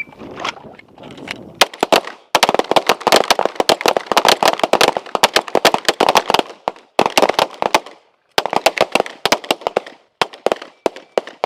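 Several handguns firing together along a line, many sharp shots overlapping rapidly for about eleven seconds with brief lulls: a group shooting a timed string of five rounds each.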